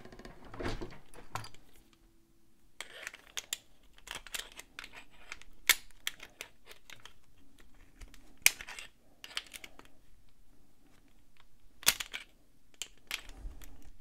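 Hand handling of a metal padlock and a screwdriver: irregular sharp clicks and light scrapes as the screwdriver is worked into the lock body where the core has been pulled out, to turn the mechanism open.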